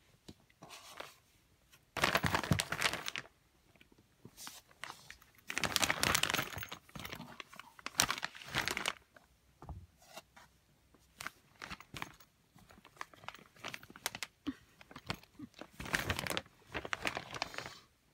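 Plastic pillow bags crinkling and rustling in irregular bursts as a cat moves around inside them, with several louder bursts of crackling.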